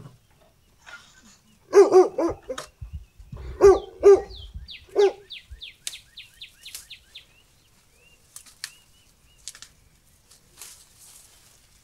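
Dog barking in quick runs of short barks, about two seconds in and again about four seconds in, with one more bark a second later. A small bird chirps repeatedly in quick, high, falling notes.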